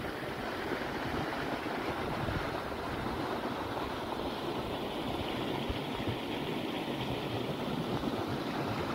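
Wind blowing steadily, with low rumbling gusts buffeting the microphone.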